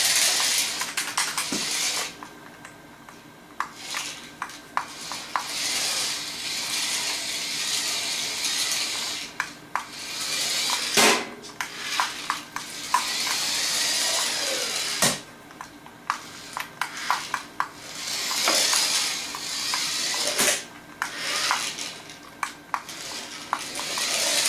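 Toy mini RC truck's small electric motor whirring in stop-start spells of a second or a few as it is driven, its wheels spinning and sliding for grip on a smooth laminate wood floor. Sharp plastic clicks and a few louder knocks come in between.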